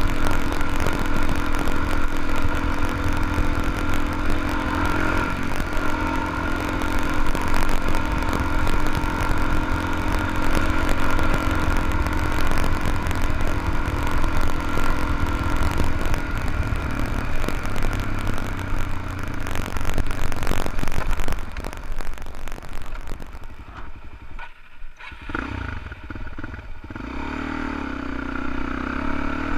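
Dual-sport motorcycle engine running steadily while riding a gravel road, with wind and road noise on the bike-mounted microphone. About three-quarters of the way through, the wind noise falls away and the engine goes quieter for a few seconds, then picks up again.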